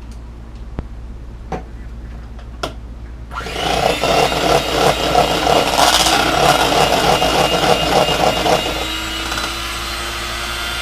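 A few light clicks, then an electric mixer switches on about three seconds in and runs steadily, beating a cream cheese filling. It drops to a quieter, steady hum near the end.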